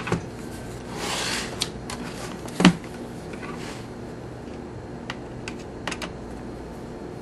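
Small metal desktop computer chassis handled and turned on a desk: a rustle, a sharp knock about two and a half seconds in, then a few light clicks as a screwdriver is set into the screw holding the drive cage.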